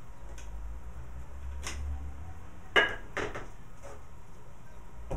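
A handful of short knocks and clunks as a washing-machine motor is gripped and shifted on a wooden shelf, the loudest a little under three seconds in, over a low steady rumble.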